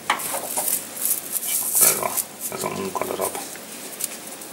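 Metal clattering, knocking and scraping on a small CNC lathe's chuck as the workpiece and loose parts are handled and taken out by hand, with a short grating, squeak-like rasp about two and a half seconds in.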